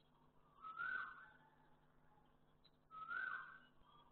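Cat meowing over and over, one drawn-out meow about every two seconds: two meows, about a second in and about three seconds in, each rising and then falling away.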